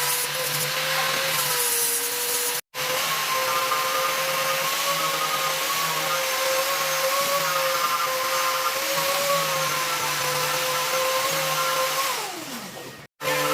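Electric power tool motor running steadily with a high whine, briefly cutting out a little over two seconds in. About twelve seconds in it is switched off and its pitch falls as it spins down.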